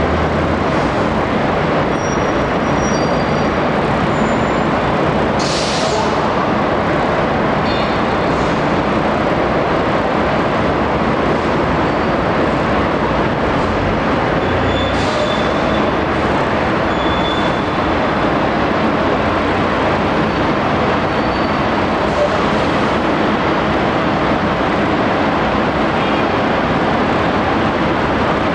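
Steady, loud running noise of a moving vehicle, with a few brief high squeaks and two short hisses, about five seconds in and again near the middle.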